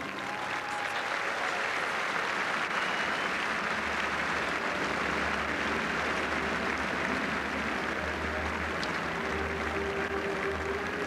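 Large stadium crowd applauding steadily, an even wash of clapping. About nine seconds in, a low held note comes in underneath as music starts up.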